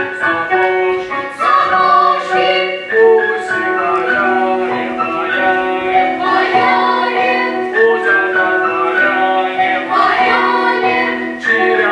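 A choir singing a melody in held notes, with music throughout.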